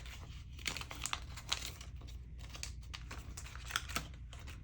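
Paper banknotes and plastic binder envelopes rustling and crinkling as cash is counted and stuffed, with scattered small clicks and taps.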